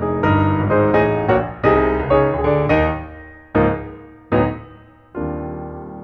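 Background piano music: struck notes and chords, slowing near the end into one held chord that fades.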